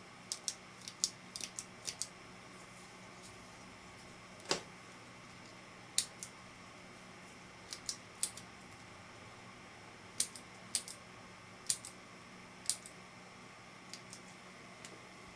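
Black plastic center-pinch lens cap clicking as its spring-loaded side tabs are pinched and released: short sharp clicks, singly and in quick clusters, with one fuller click about four and a half seconds in.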